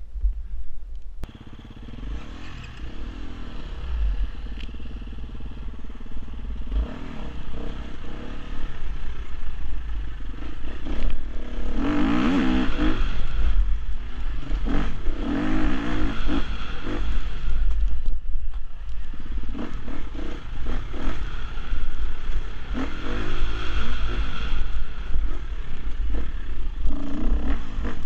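Husqvarna FE 250 four-stroke enduro motorcycle engine revving up and down repeatedly as the throttle is opened and closed on a dirt trail, heard from on board. It eases off briefly about two-thirds of the way through. Low buffeting and rattles come from the bike over the bumps.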